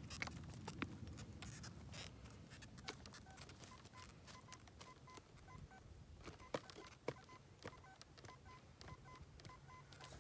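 Metal detector giving short, repeated beeps over a target in the dug soil. The beeps are mostly at one pitch, with occasional higher and lower tones, and start about three seconds in. Scattered clicks and scrapes of soil being worked run under the beeps.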